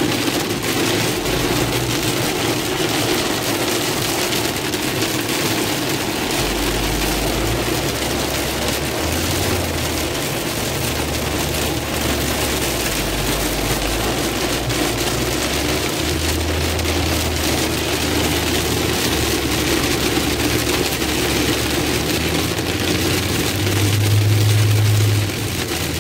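Heavy rain drumming on a moving car, heard from inside the cabin over steady road and engine noise. A louder low rumble lasts about a second near the end.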